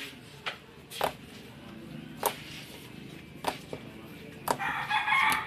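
Sharp squishy pops roughly once a second, typical of slime being squeezed and popped. Near the end a rooster starts crowing loudly.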